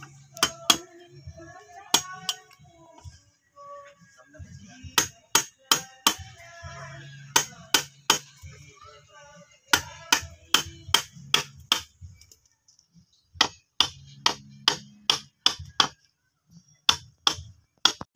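Wood chisel struck in groups of quick, sharp taps, a few a second with short pauses between, cutting a carved pattern into soft gmelina wood.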